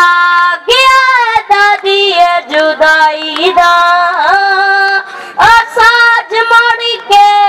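A boy singing a Punjabi song solo into a microphone over a PA, unaccompanied, with long held notes and ornamented turns and slides between phrases.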